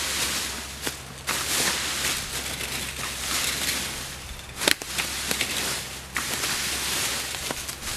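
Leaf rakes scraping and sweeping through dry leaves and dirt on a forest floor: repeated rustling strokes with scattered crackles and clicks, and one sharp knock a little past halfway that is the loudest sound.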